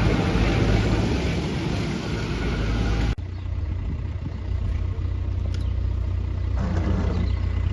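Motor vehicle engines running, a steady low hum with road noise. About three seconds in the sound cuts abruptly to a quieter, steadier engine hum.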